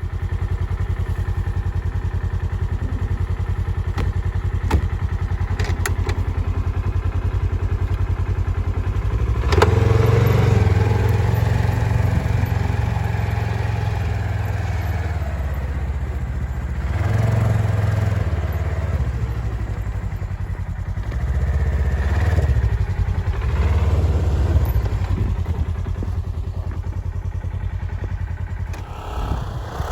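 Polaris Ranger XP1000 side-by-side's twin-cylinder engine running as the machine drives. It gets louder about a third of the way in, then rises and falls in several surges of throttle.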